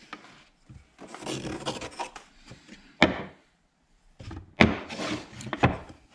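A pencil scratching on a wooden board as it traces a circle, followed by three sharp wooden knocks as boards are set down and stacked on a workbench.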